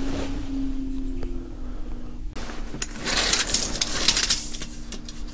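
Rustling and scraping from about two and a half seconds in, as a tape measure is stretched out across the boat's frames, over a steady low hum.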